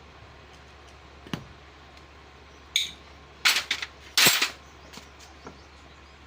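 Metal tools and engine parts clinking and clanking as they are handled during motorcycle engine repair: a few separate sharp knocks, the loudest a little past halfway.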